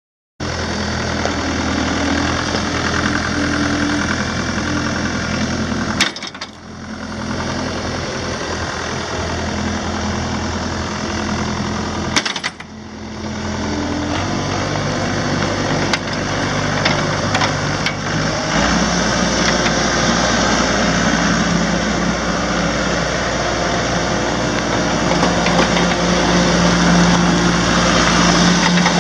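Toro Groundmaster 580D's Mitsubishi four-cylinder turbo diesel engine running steadily. The sound drops out briefly twice, then the engine speed steps up twice and it gets a little louder near the end.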